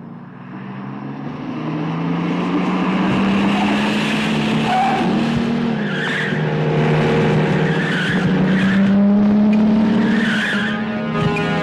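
A convoy of Hindustan Ambassador cars and a jeep driving in, their engines growing louder over the first few seconds and rising and falling in pitch, with short tyre skids several times as they brake to a stop.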